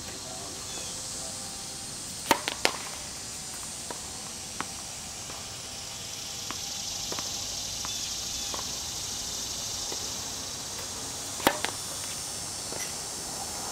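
Tennis serves: a racket strikes the ball with a sharp smack about two seconds in, followed by two quicker knocks, and again, loudest, shortly before the end. A few fainter ball taps fall between.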